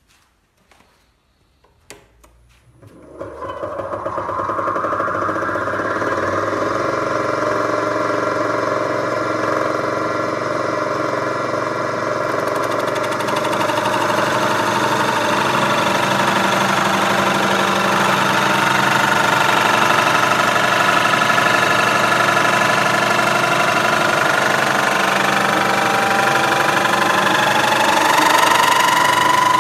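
A lathe running and cutting, a steady machine sound that comes in about three seconds in after a few clicks. A whining tone rides on top and rises in pitch near the end.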